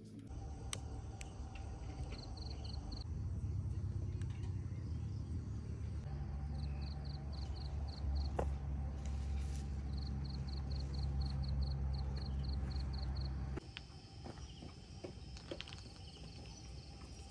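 Crickets chirping in short repeated trills over a steady low rumble; the rumble drops away about three-quarters of the way through, leaving fainter clicks and the insects.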